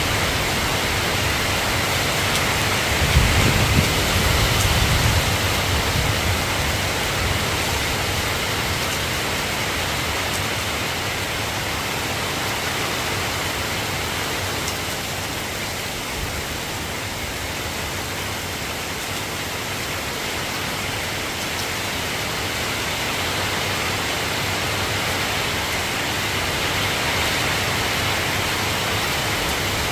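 Steady rain falling, an even hiss of drops. A low rumble rises about three seconds in and fades over the next two seconds.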